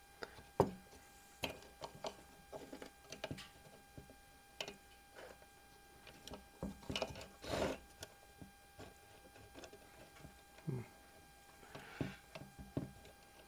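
Irregular small clicks and taps of metal and plastic parts being handled and fitted together while a Daisy 188 BB pistol is reassembled by hand, the sharpest click about half a second in. A short rustle comes about seven seconds in, over a faint steady hum.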